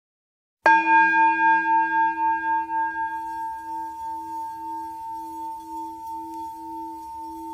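Singing bowl struck once, about half a second in, then ringing on with a pulsing, wavering hum as its higher overtones fade away.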